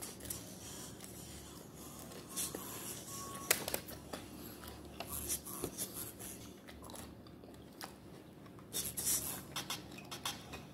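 A person chewing and biting chicken wings: scattered short wet smacks and crunches over a low background, with a denser run of them near the end.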